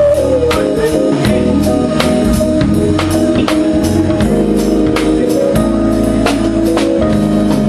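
Live band playing a song: a drum kit keeps a steady beat of drum and cymbal hits over sustained keyboard and bass notes.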